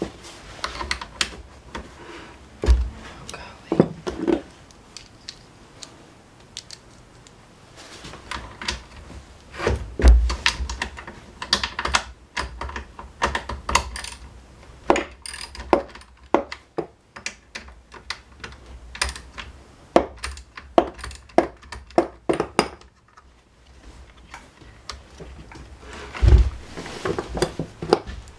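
Hand work on a Honda UMK-422 trimmer's engine: irregular clicks, taps and rattles of tools and small parts being handled, with three heavier thumps spread through.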